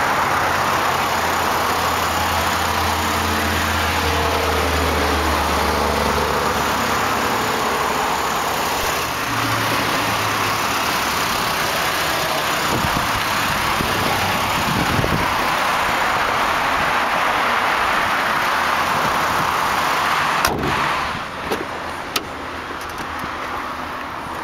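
A 2007 Chevrolet Impala's 3.5-litre V6 idling steadily, heard up close under the open hood. About three sharp clicks near the end.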